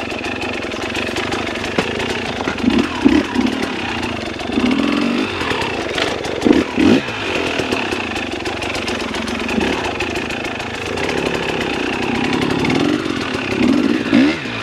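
Dirt bike engine running at low speed with repeated short throttle blips, the pitch rising and falling several times, and a brief knock about six seconds in.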